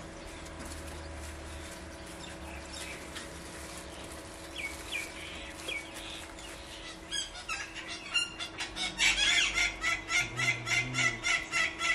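Chickens clucking: a few short calls near the middle, then a quick, regular run of calls, two or three a second, that grows louder toward the end.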